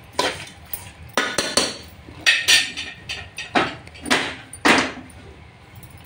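A steel ladle clanking and scraping against the sides of an aluminium pressure-cooker pot while chicken is stirred. There are about nine sharp knocks in the first five seconds, some in quick pairs and threes, then it goes quieter.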